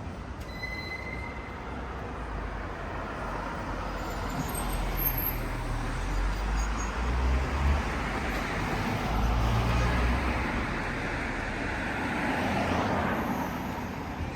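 Road traffic: vehicles passing, the tyre-and-engine noise swelling and fading, loudest in the middle and again near the end, with a low rumble.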